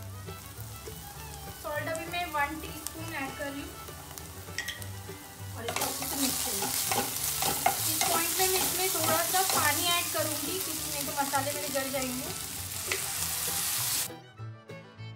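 Sliced onions, ginger-garlic paste and dry spice powders sizzling in hot oil in a kadhai while being stirred and scraped with a wooden spatula. The sizzling grows much louder about six seconds in and cuts off suddenly about a second before the end.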